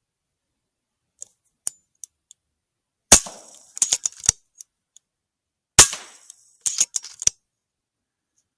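Two shots from a .22 FX pre-charged air rifle about two and a half seconds apart, each a sharp crack with a short hiss trailing off, followed by a few quick metallic clicks. Fainter single clicks come before the first shot.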